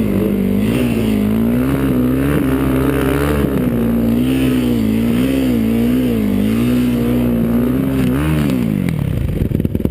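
Single-cylinder four-stroke sport quad engine running hard at high revs, its pitch wavering up and down as the throttle is worked, then falling away about eight and a half seconds in.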